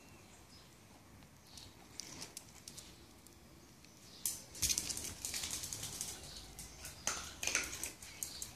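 A small dog's claws clicking and pattering on a tiled floor in quick bursts, about halfway through and again near the end.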